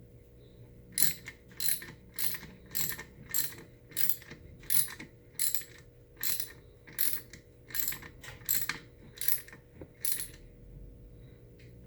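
Ratchet wrench clicking in short bursts, about two a second, as it is worked back and forth to tighten the electric motor's through-bolts; it stops about ten seconds in.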